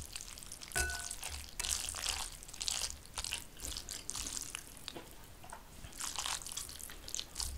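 Sauced stir-fried ramen noodles being lifted and stirred with wooden chopsticks in a ceramic bowl, giving irregular bursts of wet squishing, with a short clink about a second in.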